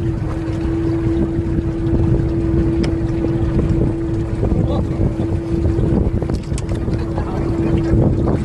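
A fishing boat's engine running steadily: a low rumble with one steady tone held through, and wind buffeting the microphone.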